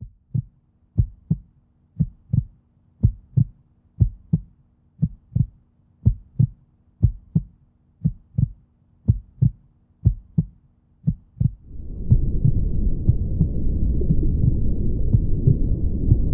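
Heartbeat sound effect: a low double thump (lub-dub) about once a second. About twelve seconds in, a dense low rumble takes over.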